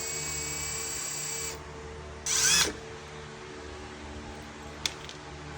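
Power drill drilling out a rivet: the motor whines steadily for about a second and a half, then gives a short, louder burst about two and a half seconds in, its pitch rising and falling. A sharp click follows near the end.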